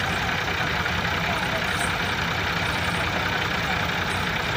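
Tractor diesel engines idling steadily, with an even low chugging that does not change.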